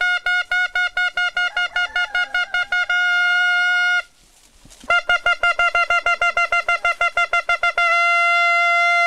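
A handheld metal horn blown by mouth on a single high note: a fast run of short toots, then a long held blast, a pause of about a second, another run of toots that speeds up, and a second long held blast. It is sounded as a signal calling the plantation workers to work.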